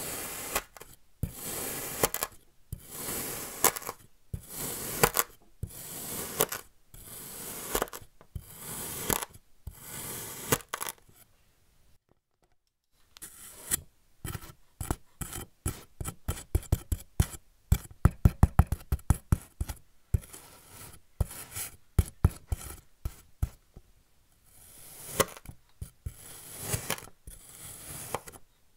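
Knife slicing through kinetic sand, each stroke a gritty crunch as the packed sand shears and crumbles, about one cut a second. Past the middle, after a brief pause, comes a quick run of sharp crisp crunches, then slower slicing strokes again.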